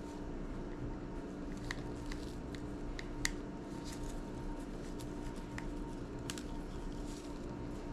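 Scattered small clicks and taps of hands and tools working on an opened iPod classic during disassembly, with one sharper click about three seconds in, over a steady low hum.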